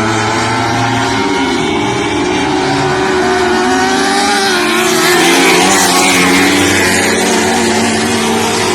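A pack of lightning sprint cars racing, several engines at once revving up and down as they lap the track, getting slightly louder about five seconds in as they pass close by.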